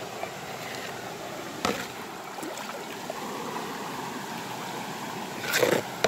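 Shallow rocky river flowing over stones, a steady rush of running water. A faint knock comes about a second and a half in, and a brief louder noise near the end.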